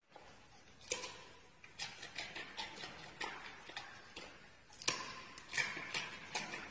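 Giant panda biting and chewing a raw carrot: irregular crunching clicks, with sharper bites about a second in and about five seconds in.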